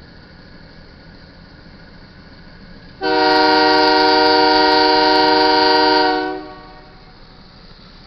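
Union Pacific GE AC4400CW locomotive's air horn sounding one long, loud, chord-like blast for the grade crossing, starting about three seconds in and lasting about three seconds before tailing off.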